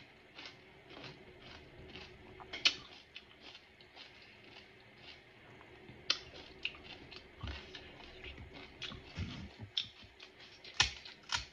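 Crisp pani puri shells crunching as a mouthful is chewed, in irregular crackling clicks. Near the end comes a louder run of sharp cracks as fingers break open a hollow puri shell.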